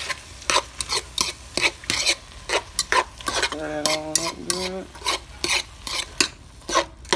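A metal utensil stirring pasta and vegetables in cheese sauce in a pot, scraping and knocking against the pot's sides and bottom in short, uneven strokes, two or three a second.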